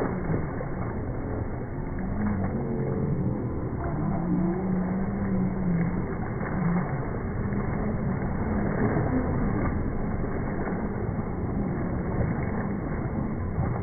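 Several 1/10-scale electric RC crawler trucks splashing through shallow water, their motors running, with a steady, muffled churn of spray and drivetrain noise.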